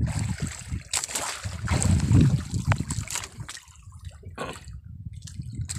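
Sea water splashing and trickling against the side of a small boat as a fishing line is hauled in, with a low rumble underneath and a few sharper splashes.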